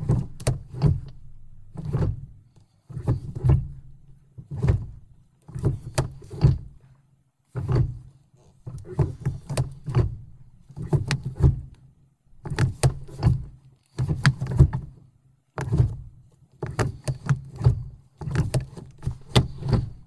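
2002 Mercury Sable's automatic-transmission shift lever being moved through its positions over and over, its detents clicking and clunking with a low rumble. There are about a dozen short bursts, one every second or so.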